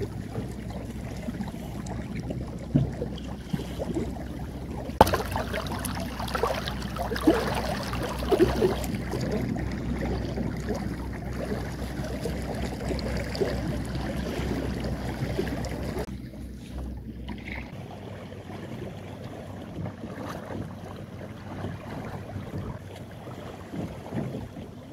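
Wind on the microphone and water washing past the hull of a small sailboat under way, with a few short light knocks; the low wind rumble eases about two-thirds of the way through.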